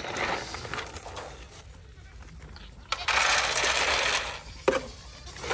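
Dry feed pellets poured out in one dense rattling stream, lasting about a second and a half from about three seconds in, followed by a single sharp knock.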